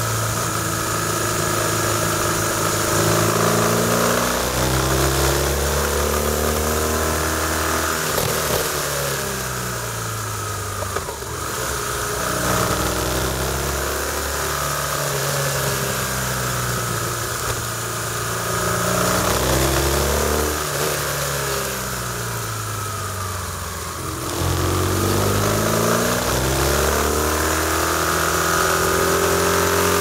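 BMW R1200RT's boxer-twin engine under way through a run of bends, its revs rising and falling over and over as the throttle is opened and closed, over a steady hiss of wind.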